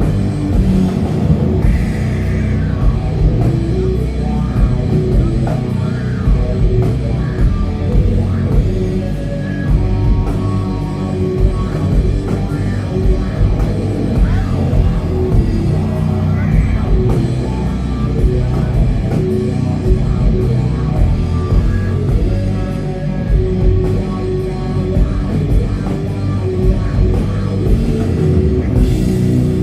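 Doom metal band playing live: heavy guitars and bass over drums, a dense, loud wall of low sound with no vocals.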